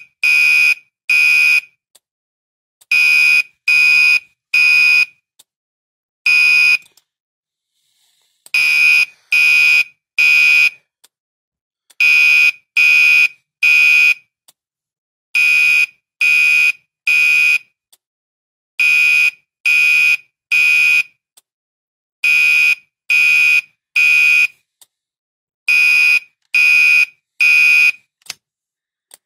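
Gentex Commander 3 fire alarm horn sounding the temporal-3 evacuation pattern: groups of three loud, high-pitched blasts with a pause after each group, switched by a relay simulating the Gentex sync protocol, with faint relay clicks. A few seconds in the pattern skips, giving a single blast and a longer gap, and near the end the horn stops as it is silenced.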